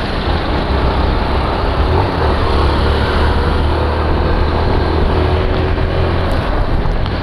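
Motor vehicle engine running steadily under way, a low rumble with road and wind noise.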